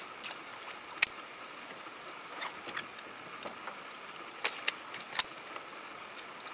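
Steady outdoor hiss in a small boat on a river, with a few sharp clicks and taps from handling gear. The loudest tap comes about a second in, and a small cluster follows about four and a half to five seconds in.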